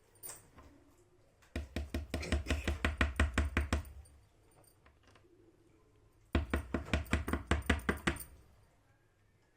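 Two bursts of rapid tapping, each about two seconds long, at around seven taps a second.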